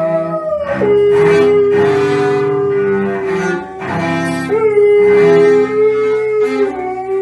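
A cello playing slow, long bowed notes while a dog howls along with it.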